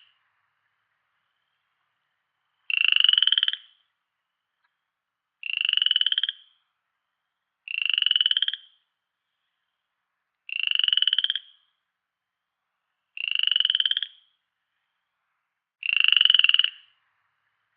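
A frog croaking: six calls, each a quick run of pulses lasting about a second, spaced two to three seconds apart with silence between.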